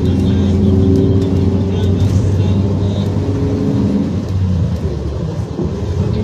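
A moving road vehicle's engine and tyre noise: a steady low rumble that eases slightly about five seconds in.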